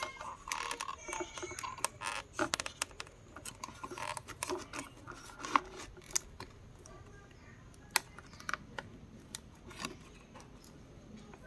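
Irregular sharp clicks and taps of small tools and parts being handled during amplifier repair work, with a couple of louder clicks about halfway through.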